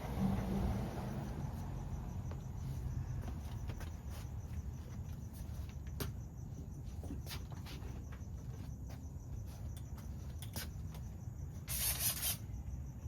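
Crickets chirping steadily in the background, with scattered light clicks and a short burst of hiss about twelve seconds in.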